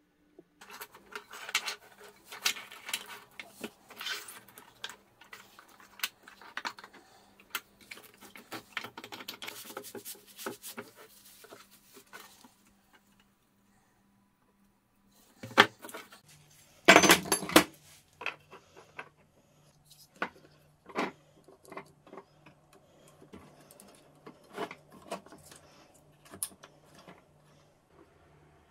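Hands at work gluing up a wooden frame: a glue brush scratching across wood, then plastic clamps clattering onto the bench with one loud burst of knocks, and scattered clicks as quick-grip bar clamps are ratcheted tight. A faint steady low hum runs underneath.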